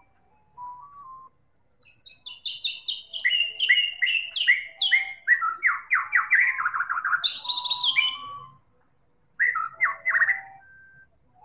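White-rumped shama singing: a loud, fast run of downward-sweeping whistled notes lasting about six seconds, then a short pause and a shorter burst of notes near the end.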